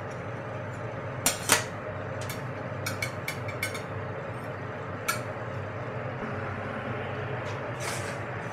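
A metal fish slice clinking and scraping against a metal baking tray and china plates as toasted crumpets are lifted and set down: a scatter of short sharp clicks, the loudest about a second and a half in, over a steady kitchen hum.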